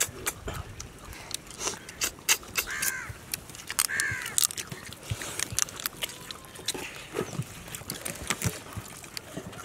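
Crab shells cracking and crunching as cooked crab is bitten and chewed by hand, with irregular sharp cracks and clicks throughout.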